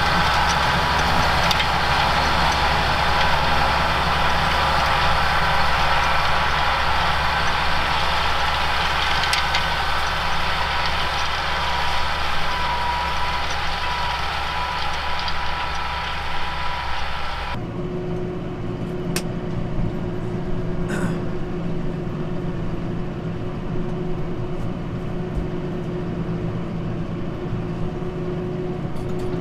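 Tractor engine running steadily. A little over halfway through, the sound cuts abruptly to a duller, slightly quieter engine note with a steady hum: the Kubota tractor running, heard from inside its cab.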